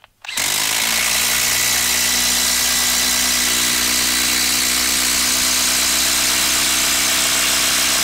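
Bosch brushless impact driver hammering steadily under load as it drives a long Spax screw into a log round. It starts a moment in and keeps an even, unbroken pitch and level.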